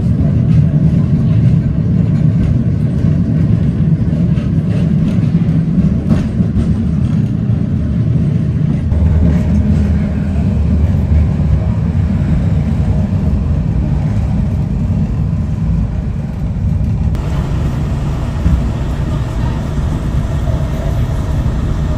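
Historic tram running along its rails, heard from on board: a steady low rumble that deepens about nine seconds in.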